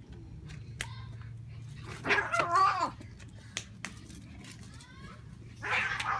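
Two cats fighting: a loud, wavering yowl about two seconds in and another near the end, with scuffling clicks between.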